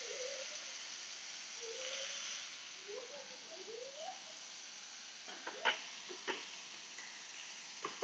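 Steaks sizzling steadily in a stainless steel frying pan, with lemon juice just poured over them. A few light clicks come a little past halfway and once more near the end.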